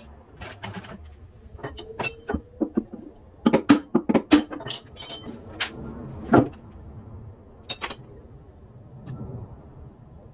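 Irregular metallic clinks and knocks of tools and metal parts being handled, bunched together in the middle with one more near the end.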